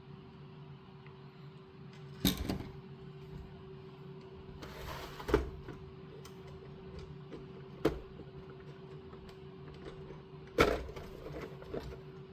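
Plastic building-brick sections knocking and clicking as they are handled and pulled apart, with four sharper knocks a few seconds apart over a faint steady hum.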